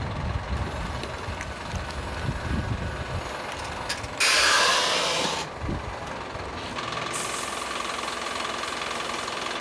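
Wing-body box truck with its engine running as a low rumble, then a loud hiss lasting about a second, followed by a steady high warning tone.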